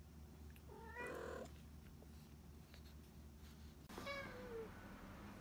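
A cat meowing twice: a short, rough call about a second in, then a longer meow near the end that drops slightly in pitch.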